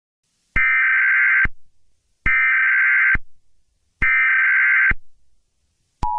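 Emergency Alert System SAME header: three harsh digital data bursts, each just under a second long with about a second of silence between them. Near the end the steady two-tone EAS attention signal begins.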